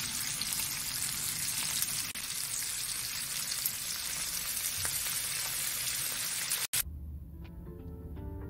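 Shrimp, garlic and dried chili frying in oil in a pan: a steady sizzling hiss. Near the end it cuts off suddenly and soft background music takes over.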